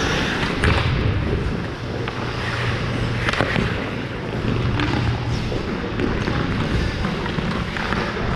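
On-ice hockey play heard up close: skate blades scraping and carving the ice, with sharp clacks of sticks and puck a few times.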